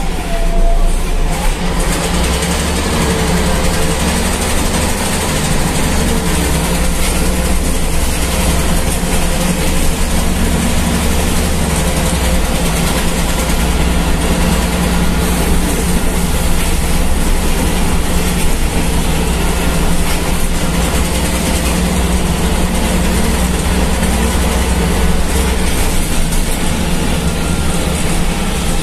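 Ikarbus IK-103 city bus under way, heard inside the passenger cabin: a steady, loud engine drone with road and body noise throughout.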